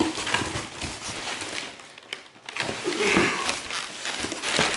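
Plastic air-cushion packing and cardboard rustling and crinkling as hands rummage through a shipping box, with scattered clicks and taps.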